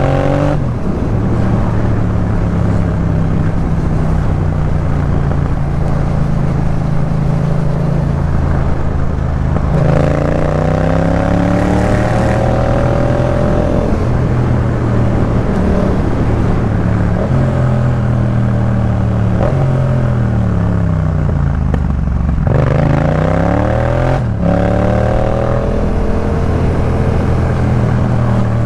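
Yamaha MT-07 parallel-twin engine breathing through a Jeskap K4 full exhaust, ridden mostly at a steady engine speed. The pitch dips just after the start and climbs with a gear change around ten seconds in. It falls away about twenty seconds in, then climbs again and changes gear once more a little later.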